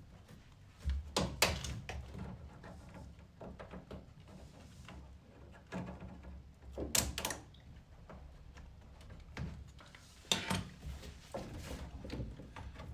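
Hands fitting hose clamps and hoses onto a washing machine's drain pump: scattered knocks, clicks and rattles of metal and plastic parts, the sharpest about a second and a half, seven and ten and a half seconds in.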